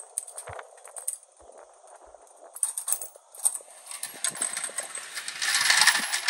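Hornady Lock-N-Load AP progressive reloading press worked by hand: brass cartridge cases clinking and metal parts clicking, with a louder, longer rattle of the press near the end as it is cycled.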